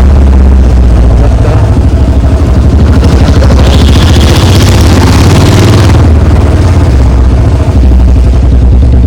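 Royal Enfield Bullet 350's single-cylinder engine running loud through an aftermarket bend-pipe exhaust while riding, a rapid even beat of exhaust pulses. There is a brief dip about three-quarters of the way through.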